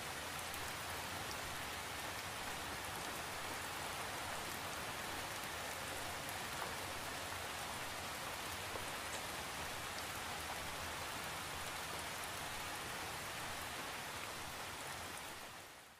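Steady rain: an even hiss with scattered drop ticks, fading out near the end.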